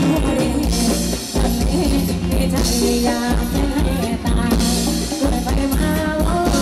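Live Thai ramwong dance band playing, with a steady drum beat, guitar and a singer's voice.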